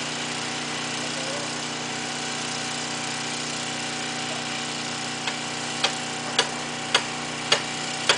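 An engine idling steadily. About five seconds in, a regular series of sharp knocks starts, about two a second, louder than the engine.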